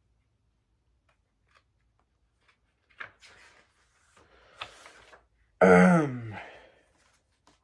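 A few faint rustles, then, a little past halfway, a loud breathy vocal sigh from the reader that falls in pitch and fades out.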